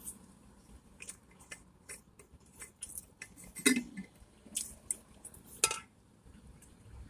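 Fast-food packaging being handled: scattered light clicks and crinkles, with two louder clatters about three and a half and five and a half seconds in.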